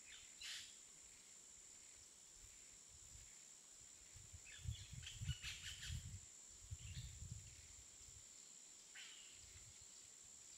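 Faint outdoor nature ambience: a few brief bird chirps, about half a second in, a cluster around the middle and one near the end, over a steady high-pitched hiss, with a low rumble in the middle.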